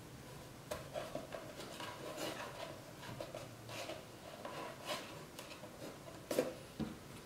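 Hands pressing rolled pieces of milk-bread dough into a metal loaf tin: soft rubbing and light taps of fingers and dough against the tin, with one louder knock a little after six seconds in.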